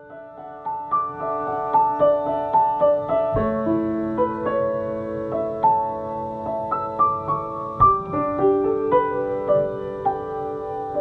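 Solo piano music: a melody of single struck notes over lower chords, fading in at the start, with deeper bass notes coming in about three and eight seconds in.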